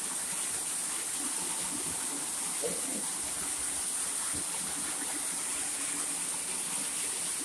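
Small waterfall pouring onto a jewelled ornament and splashing into a shallow pool, a steady rush of falling water.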